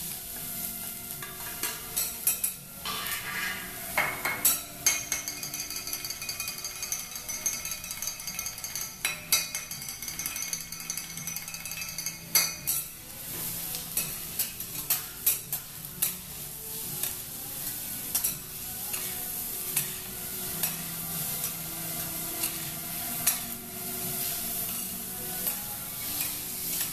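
Food sizzling on a flat steel teppanyaki griddle while a metal spatula scrapes and clacks against the plate, turning and stirring the vegetables and noodles in frequent sharp knocks.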